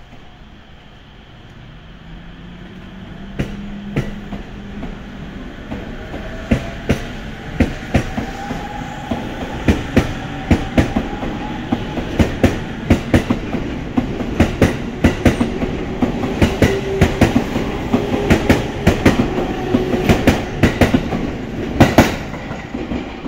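JR East E231 series electric commuter train pulling away from a station. Its VVVF inverter traction motors give a rising whine as it starts off. From a few seconds in, its wheels click over the rail joints, the clicks coming faster and louder as it gathers speed past the platform.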